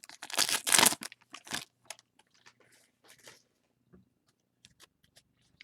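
Trading-card packaging being torn open: a loud rip for the first second and a half, then faint crinkling and small clicks as the packs are handled.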